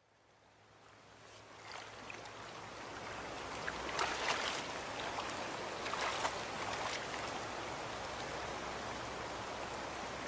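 Rushing water, a steady hiss like a stream or surf, fading in from silence over the first few seconds, with a few louder splashing surges about four and six seconds in.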